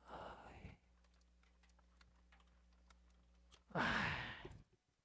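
A man sighs twice: a short breath at the start and a longer, louder exhale near the end, with a faint steady hum and scattered light clicks in between.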